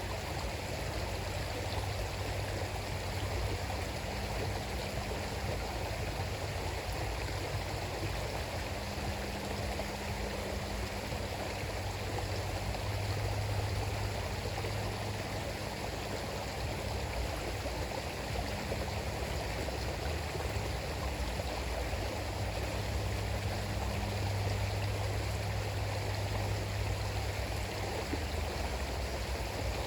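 River water flowing and rushing steadily over its bed, a constant even rush.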